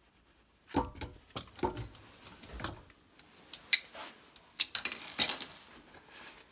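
Metal wrench clinking and knocking against brass pipe fittings: an irregular run of sharp metallic clicks and clatter, beginning about a second in with a few duller knocks, the sharpest clicks coming near the middle and later.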